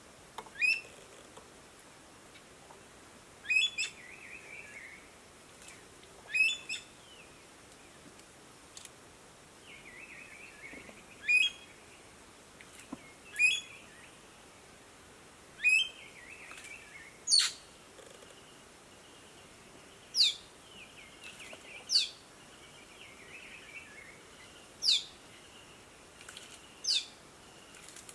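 Bird calls: a dozen or so short, sharp, high notes that sweep steeply in pitch, repeating every two to three seconds, some in quick pairs, with softer twittering between them.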